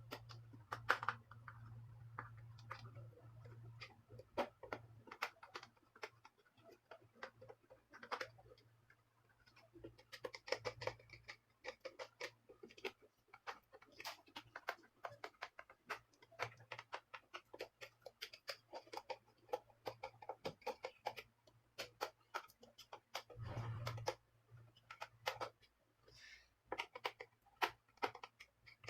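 Irregular small clicks, taps and rattles of the soundbar's parts and screws being handled and worked during disassembly, with a low hum in the first few seconds and again briefly near the end.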